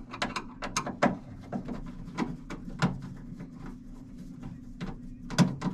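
Screwdriver backing a screw out of the sheet-metal blower mount of a range hood insert: a run of small, irregular metallic clicks and scrapes.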